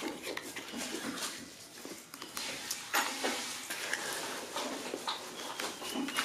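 Hands scraping and scooping through a heap of fine grey powder, with a dry rustling hiss and small clicks and taps as the little paper cracker casings are handled; a sharper tap comes about three seconds in.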